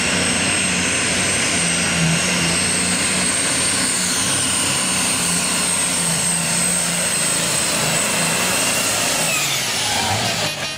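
Modified pulling tractor's diesel engine running flat out under full load as it drags the weight sled, black smoke pouring from its stacks, with a steady high whine over the engine. About nine and a half seconds in the whine falls in pitch as the pull ends.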